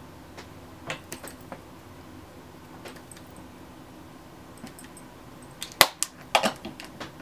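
Makeup products and a brush being handled while setting powder is put on: a few faint taps and clicks, then one loud, sharp click near the end, followed by a few smaller ones.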